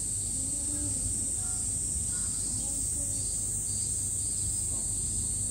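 A steady high-pitched drone of summer cicadas, with faint distant people's voices and a low background rumble.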